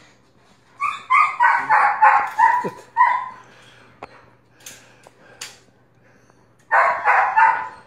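A dog barking: a quick run of about seven barks, a pause, then three more barks near the end.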